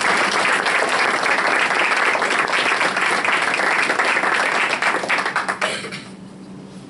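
Audience applause, many hands clapping, which dies away about six seconds in.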